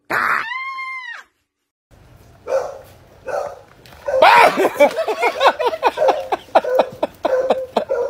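A person's high shriek, about a second long, rising and then falling before it cuts off. After a short gap, a dog barks rapidly in quick short barks, several a second, through the second half.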